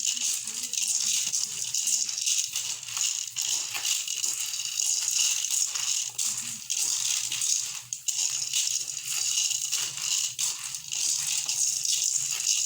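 Chicken feed grains being stirred in a container, giving a steady, dense rattle of many small ticks as the grains shift against each other and the container.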